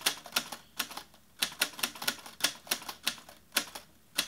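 Sharp key clicks struck at an uneven typing pace, about three or four a second, some in quick pairs.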